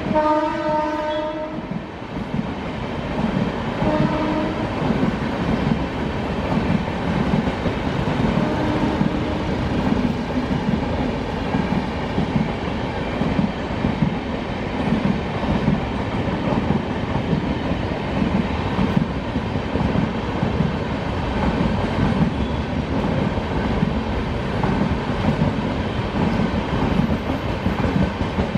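Train horn sounding for about a second and a half at the start, with two short, fainter horn notes a few seconds later. Under it and then alone, LHB passenger coaches rolling past close by: a steady loud rumble with fast rhythmic wheel clatter over the rails.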